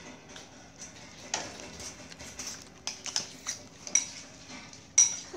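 Cutlery clinking against ceramic dishes during a meal: a scatter of light taps, with two sharper clinks that ring briefly about four and five seconds in, the second the loudest.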